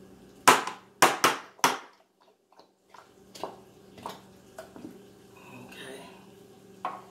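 Metal can of condensed cream of mushroom soup banged over a saucepan to shake out the soup: four sharp knocks in quick succession about half a second in, then several lighter taps.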